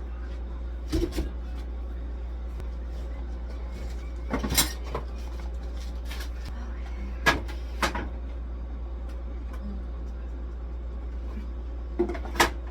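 Scattered knocks and clatters of kitchen things being handled, set down and shut, in small clusters about every few seconds, over a steady low hum.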